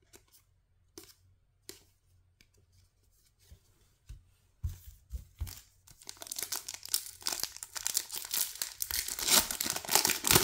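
A few light clicks of trading cards being handled, then a foil-lined baseball card pack wrapper crinkling and being torn open, getting louder over the last four seconds.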